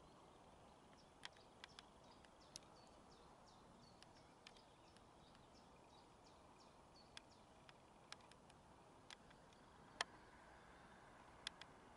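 Near silence: faint hiss with a quick run of short, high bird notes a few seconds in, and scattered sharp clicks, the loudest about ten seconds in.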